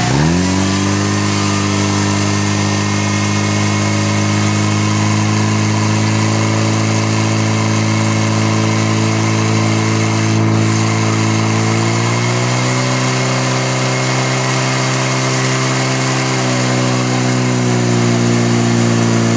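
Portable fire pump engine run up hard at the start and then held at high, steady revs while it pumps water out through the attack hoses. Its pitch steps up a little about two-thirds of the way through and eases back slightly near the end.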